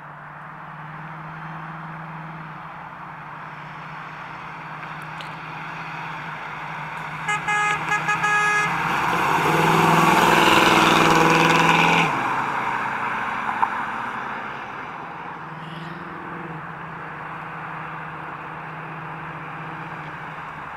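Big-block 396 V8 of a 1972 Chevrolet Camaro running as the car drives past, loudest for about three seconds near the middle, then cutting off suddenly. Just before the loud pass there is a quick run of short pitched blips, over a steady background hiss.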